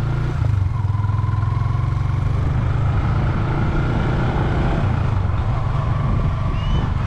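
Motorcycle engine running steadily while riding at an even road speed, heard from on the bike.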